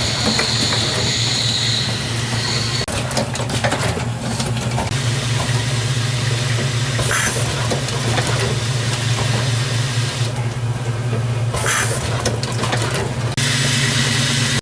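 Toy motorcycle automatic assembly machine running: a steady low hum under constant hiss, broken several times by short bursts of hissing and clatter.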